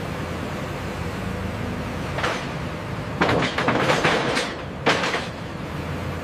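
Forklift engine running steadily, with metallic clanks and knocks, once a little after two seconds in, then a cluster and one more near the five-second mark, as a bundle of steel rails is set down on a flatbed truck.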